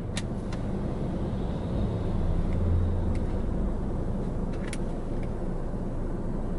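Low steady rumble inside a car cabin, with a few faint clicks of a phone being pressed into a plastic phone case.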